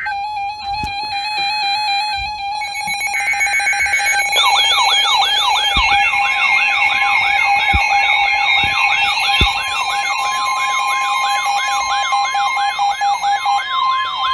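Emergency Alert System activation on weather radio for a new severe thunderstorm warning. Short buzzy SAME data bursts of the alert header come first over a steady alert tone. About four seconds in, weather radio alarms start, with rapid siren-like warbling sweeps about twice a second that continue over steady tones, along with a few scattered knocks.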